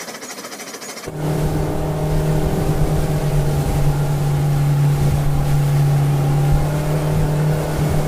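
Small motor of a toy motorboat buzzing steadily at one pitch, with water churning around the hull. It starts suddenly about a second in.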